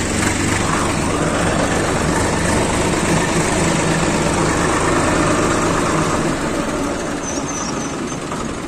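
Swaraj 855 tractor's three-cylinder diesel engine running steadily as the tractor drives along, heard from the driver's seat. It gets a little quieter over the last couple of seconds.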